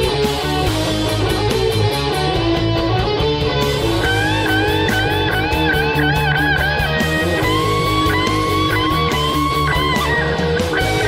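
Heavy metal instrumental played by a rock band: distorted electric guitars over bass and drums with steady cymbal hits. From about four seconds in, a lead guitar plays a run of bent notes that rise and fall in pitch.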